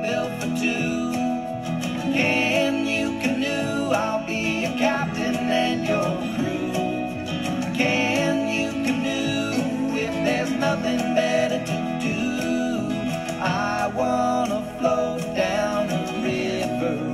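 Acoustic folk song with guitar, playing steadily.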